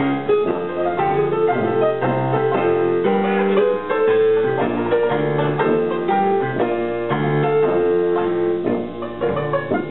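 Piano taking the lead in a hot jazz band's live performance, playing a dense run of notes over a steady pulse.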